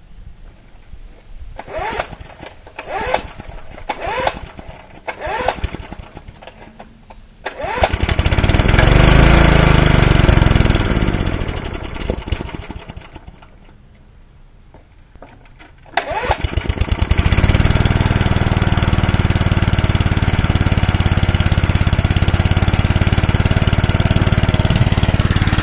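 Four-horsepower Briggs & Stratton lawnmower engine being pull-started: several short recoil pulls, then it fires about seven seconds in, runs a few seconds and dies away. It catches again about two-thirds of the way through and keeps running steadily; the engine is being stubborn to start.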